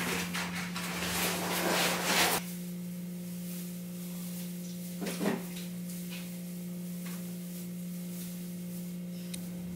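Artificial Christmas tree's plastic branches rustling as the tree is taken apart, loudest for the first two seconds or so, with another brief rustle about five seconds in. A steady low hum sits underneath.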